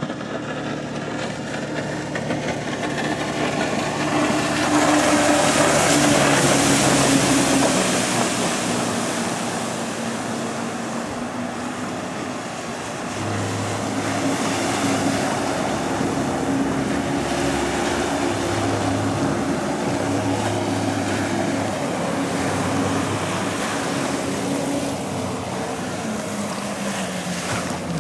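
Yamaha WaveRunner personal watercraft running at speed, its engine pitch rising and falling as it turns, with the rush of its jet spray loudest as it passes close about five seconds in. Water slapping and wind on the microphone run under it.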